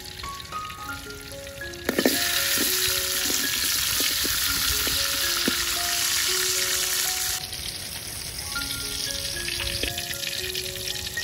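Food frying in hot oil: a loud sizzle starts suddenly with a sharp click about two seconds in. It drops to a quieter sizzle after about seven seconds, with a few light utensil knocks. A plucked background melody plays throughout.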